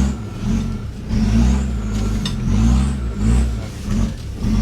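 Off-road 4x4's engine revving up and down over and over, about once a second, as it works to get through or out of the ground.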